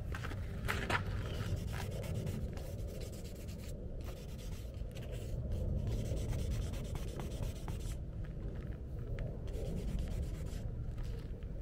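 Sandpaper rubbed by hand over a scratch on a car's front bumper: steady, continuous scraping and rubbing as the scratched paint is sanded smooth.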